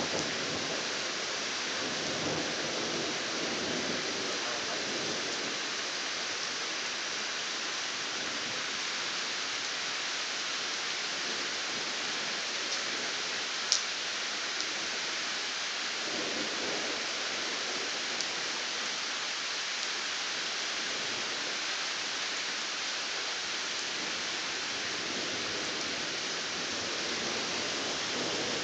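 Steady hiss of rain falling through a thunderstorm, with low rumbles of distant thunder about two seconds in and again a little past halfway. One sharp click about halfway through is the loudest moment.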